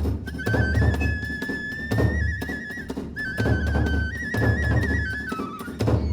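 Kagura hayashi music: a transverse bamboo flute plays a high melody that moves in steps and holds long notes, over deep drum strokes roughly once a second and sharp strikes that reach the top of the range.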